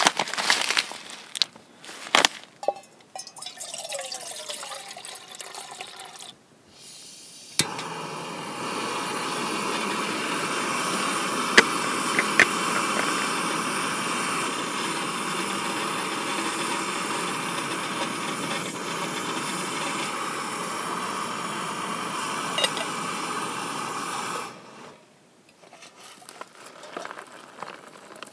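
Backpacking gas-canister stove burner running under a pot of water with a steady hiss. It starts abruptly with a click a few seconds in and cuts off suddenly a few seconds before the end.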